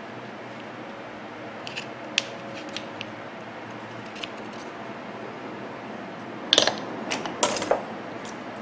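Small metal clicks and scraping as the copper winding is pulled out of a microwave turntable motor's metal housing: a few scattered clicks, then a louder cluster of scrapes and clicks near the end.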